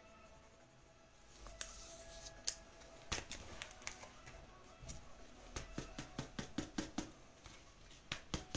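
Trading cards being slid into plastic penny sleeves and a rigid toploader: faint rustles and small plastic clicks, coming more often in the second half.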